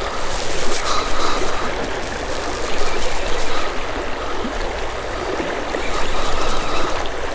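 Steady rush of creek water close by. A spinning reel whirs faintly now and then as a hooked walleye is reeled in.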